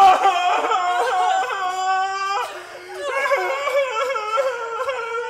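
An actor's exaggerated stage wailing, a mock howl of crying, in two long, high, wavering wails with a short break about two and a half seconds in.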